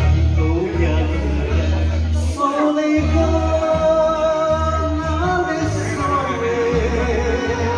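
A man singing a Japanese enka song into a microphone over a karaoke backing track with a steady pulsing bass, holding long notes with vibrato.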